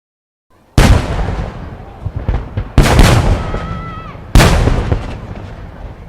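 Shaku-dama (30 cm) water-surface firework shells bursting: three heavy booms, the second about two seconds after the first and the third a second and a half later, each trailing off in a long rumble with scattered crackles between.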